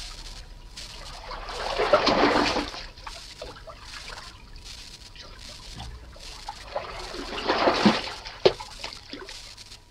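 A canoe paddle is pulled through the water in two strokes about five seconds apart, each a rising and falling swish and splash. Between the strokes water trickles and drips, and there is a sharp knock shortly after the second stroke.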